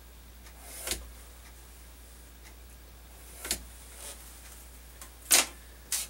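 Handling noises from marking a strip of aluminium with a pen and ruler and putting the ruler down on the workbench: four short scrapes, the loudest about five seconds in, over a low steady hum.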